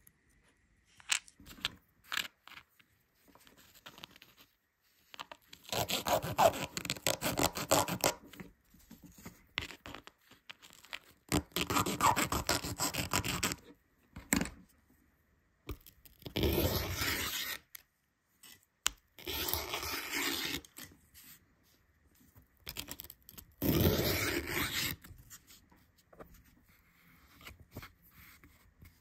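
A tiny circuit board's edges rubbed on orange sandpaper in five scratchy bursts of two to three seconds each, sanding down the stubs left from snapping it out of its panel. A few small clicks come in the first few seconds.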